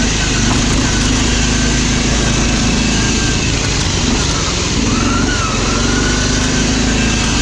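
Riding lawn mower engine running steadily at full throttle under way, its hum wavering slightly in pitch.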